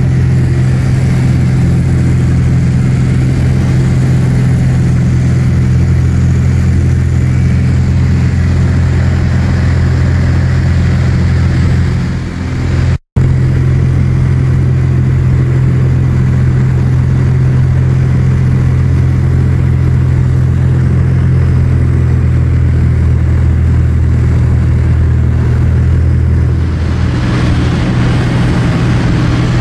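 Light aircraft's piston engine and propeller running steadily, heard inside the cabin in flight as a loud, even drone, broken off for a moment about halfway through.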